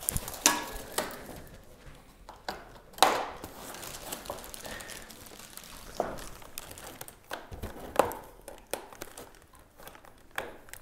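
Plastic wrap and foam packaging rustling and crinkling as an e-bike is unpacked, with several sharp clicks among it, typical of zip ties being snipped with diagonal cutters.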